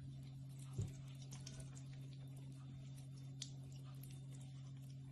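Thin stream of tap water falling into a sink, with faint scattered patters and small splashes as a kitten paws at it, over a steady low hum. A soft thump about a second in.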